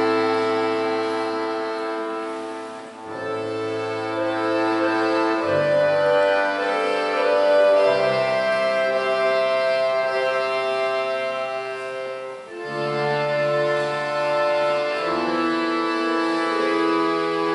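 Russian folk-instrument orchestra playing held chords, with the bayans (button accordions) prominent. The sound thins briefly twice, about three seconds in and again about twelve seconds in, between phrases.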